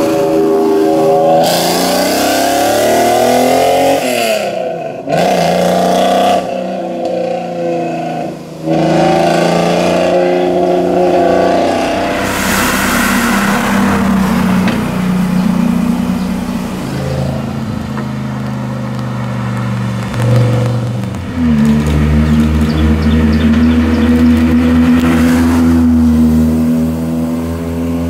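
Supercar engines revving and accelerating, several short takes cut together, with sudden changes in pitch and loudness at the cuts. In the last few seconds a deep, steady engine note holds with higher overtones above it.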